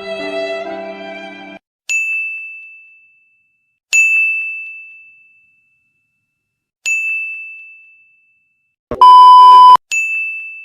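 Sound-effect ding, a bright bell-like chime struck four times at uneven gaps, each note ringing away over about a second. Shortly before the last ding there is a loud, harsh beep about a second long. Sad string music ends about a second and a half in.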